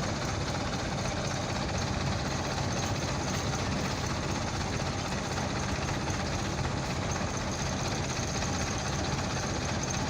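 A truck engine running steadily, without revving.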